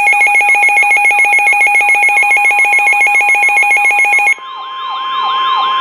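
Loud electronic weather-radio alert tones announcing a new severe weather warning. A rapidly pulsing, multi-pitched alarm beep cuts off abruptly about four seconds in. It is replaced by a fading-in siren-like sound of repeated downward-sweeping chirps, about three a second, over a steady tone near 1 kHz.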